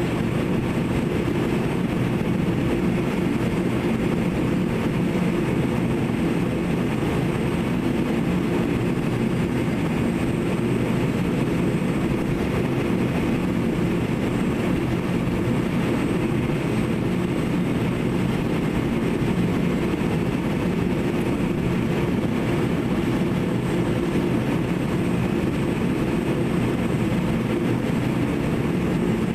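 Steady low hum of a radio-controlled scale model excavator running as it digs, with no separate knocks or changes.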